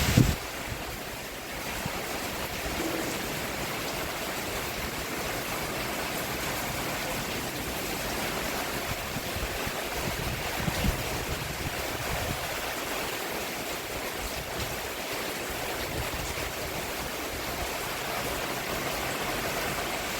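Rain falling steadily on a roof: an even hiss of drops, with a short thump at the very start and a fainter knock about halfway through.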